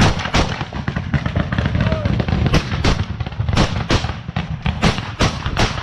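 Close-range rifle gunfire in an exchange of fire: about a dozen loud single shots at irregular intervals, some in quick pairs, with rustling and movement noise between them.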